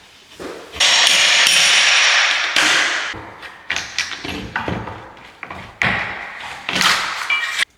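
Demolition noise during drywall work: a loud, harsh rushing noise lasting about two seconds, then a run of knocks and scraping bursts that stops abruptly near the end.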